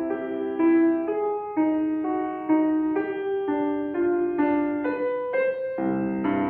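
Piano playing a slow melody of single held notes, one after another, with fuller chords and a bass line coming in near the end.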